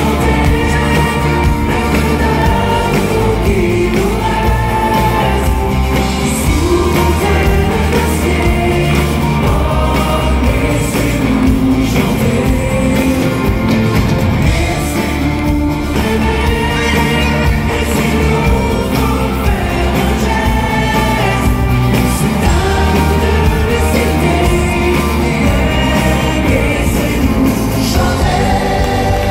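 Live 1980s French pop music from the audience side of a concert: a group of singers singing together into microphones over an amplified band with a steady beat.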